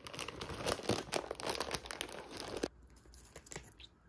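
Foil-lined Kkobuk Chip snack bag crinkling loudly as it is handled and pulled open, for about two and a half seconds, followed by a few faint crinkles.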